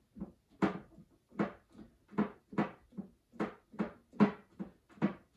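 Small wood screw driven by hand with a screwdriver through a steel hinge leaf into a wooden cabinet lid: a steady run of short creaks, about two or three a second, one with each twist of the wrist.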